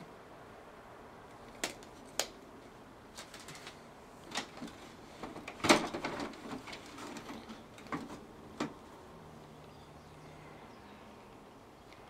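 Scattered sharp clicks and knocks of plastic and sheet metal as an open desktop computer case is handled and its side cover put back on. The loudest knock comes about six seconds in.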